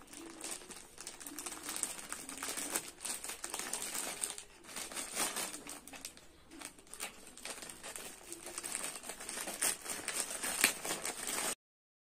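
Plastic courier mailer bag crinkling and rustling, with many small sharp crackles, as it is handled and pulled open at its sealed edge. The sound cuts off suddenly near the end.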